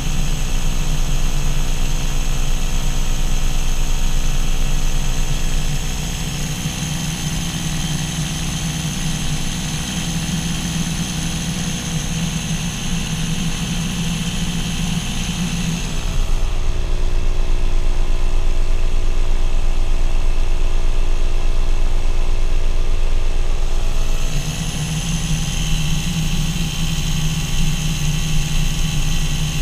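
Paramotor's engine and propeller running steadily in flight. In the middle, for about eight seconds, the sound turns louder and duller before returning.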